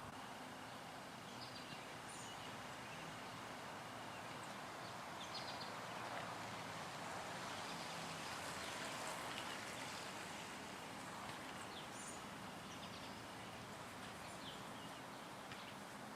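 Quiet outdoor ambience: a steady faint hiss with a few short, high bird chirps scattered through it.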